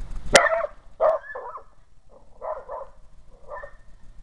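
A dog barking in short bursts, about six times, the first bark starting with a sharp click.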